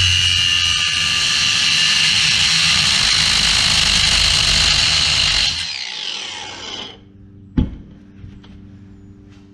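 Power tool cutting into the scooter's steel exhaust pipe, running steadily at high speed, then switched off about five and a half seconds in and winding down with a falling whine. A single sharp knock follows, over a faint low hum.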